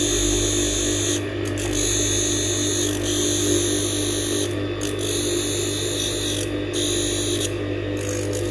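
Electric blade-grinding machine running steadily while a hair-clipper blade is ground and polished on it, bringing the blade to a smooth finish. A high hiss of metal on the wheel rides over the motor's hum and breaks off briefly about four times.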